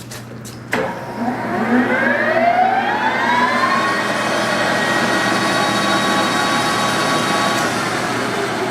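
Jet 15x50 engine lathe's spindle and geared headstock starting with a click about a second in, its whine rising in pitch for about three seconds as it spins up to 2,000 RPM, then running steady and quiet. Near the end it is switched off with another click and the whine begins to fall.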